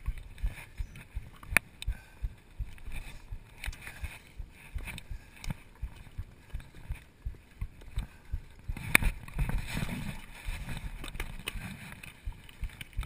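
Mountain bike rolling over a dirt singletrack: a low rumble of tyres on the trail with a run of irregular knocks and rattles as the bike and camera mount jolt over bumps, about two or three a second, turning rougher and louder about nine seconds in.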